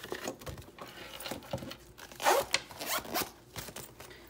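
Zipper of a clear vinyl cash-binder pouch being run shut in several rasping strokes, the loudest a little over two seconds in, with paper bills rustling as they are tucked in.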